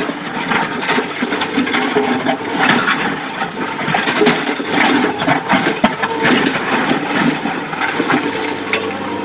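Excavator loading a truck: diesel engine running under continual rattling and knocking.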